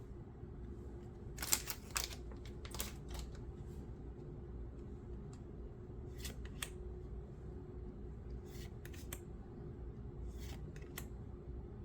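Pokémon trading cards being flipped through by hand, with short, sharp swishes and snaps as each card slides off the stack, in irregular clusters over a low steady hum.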